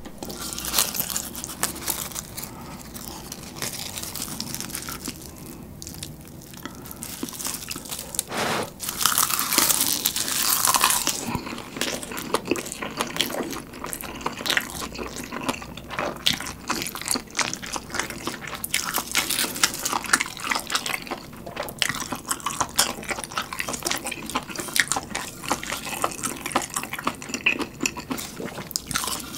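Close-miked eating: chewing and slurping stir-fried ramen noodles wrapped in dried laver, with many wet mouth clicks and smacks and the crisp crackle of the dry seaweed. It is loudest for a couple of seconds around nine to eleven seconds in.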